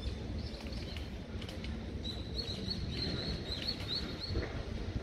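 A small bird chirping: a quick run of about ten short high notes, about four a second, starting about two seconds in and stopping near the end, over a steady low rumble.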